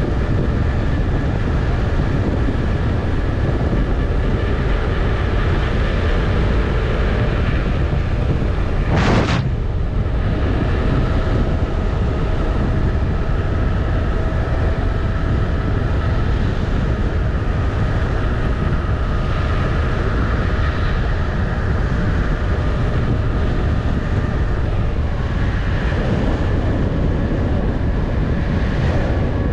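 An electric unicycle ridden at speed: steady wind rumble on the microphone with a thin, steady whine from the hub motor. There is one sharp knock about nine seconds in.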